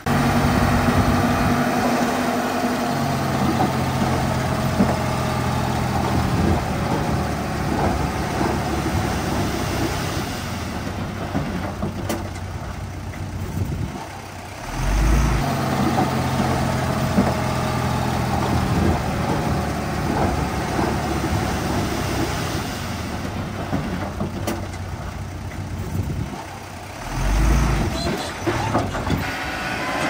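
Heavy diesel earthmoving machinery working under load, its engine running loud and steady. The engine note drops twice, about halfway and near the end, each time followed by a brief low thud as it picks up again.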